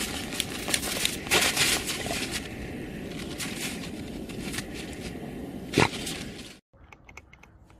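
Dogs digging in snow: paws scraping and crunching through snow and frozen ground in quick, irregular strokes, with one louder sharp crunch about six seconds in. Shortly after, it cuts to a much quieter stretch with a few faint clicks.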